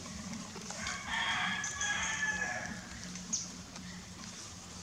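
A rooster crowing once in the background: one long call of about two seconds, starting about a second in.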